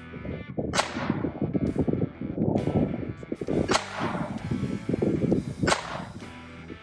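Three gunshots, the first about a second in and the next two roughly three and two seconds apart, over guitar background music.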